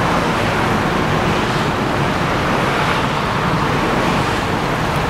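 Steady road-traffic noise with the low engine rumble of a DAF XF106.510 truck with open exhaust pipe, pulling slowly away at low speed. The sound holds even throughout, with no revving or sudden events.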